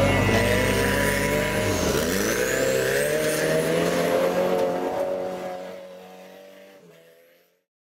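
An engine revving, its pitch dropping about two seconds in and then climbing again before it fades out over the last couple of seconds.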